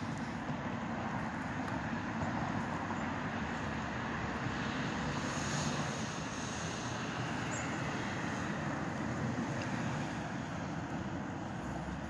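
Steady rumble of distant engine noise, swelling a little in the middle, with a faint high whine.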